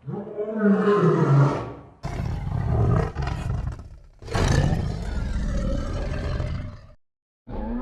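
Big cat roaring: a pitched call, then two long rough roars that cut off suddenly near the end.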